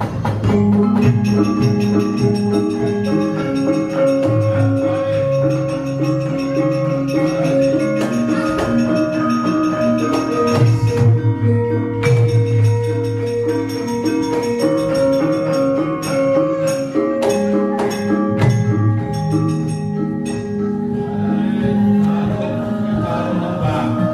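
Javanese gamelan playing a steady, busy piece of interlocking notes on bronze metallophones and gongs, with a few sharp knocks around the middle.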